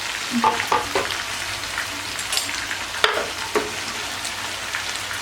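Chicken frying and sizzling in a pan, with a few sharp knocks and scrapes of a spoon against the pan as chopped tomatoes are added and stirred in.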